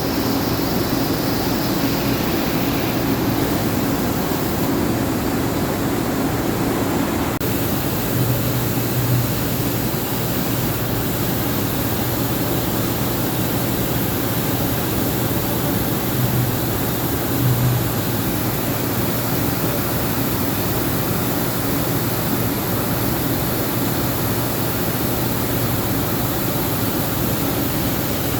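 Chiron FZ08 MT CNC mill/turn machining center running a program under power without cutting: a steady rushing machine noise with a constant low hum, swelling slightly a couple of times.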